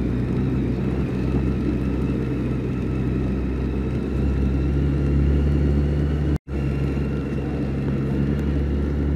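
BMW K1600 GT's inline six-cylinder engine running steadily at low town speed. The sound cuts out completely for an instant about six and a half seconds in.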